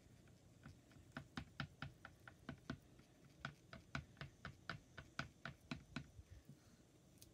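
Mixing stick clicking against the inside of a plastic pot of metallic colour paste as it is stirred: a run of light, irregular clicks, about three a second, starting about a second in and stopping near the end.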